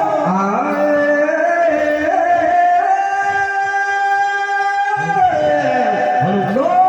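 A man singing a Rajasthani Tejaji folk song (teja gayan) in a high, strong voice, stepping up through a phrase and holding one long steady note for about two seconds before dropping and climbing into the next phrase near the end.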